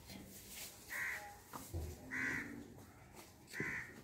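A crow cawing: three short, harsh calls about a second and a half apart, with a soft knock between the first two.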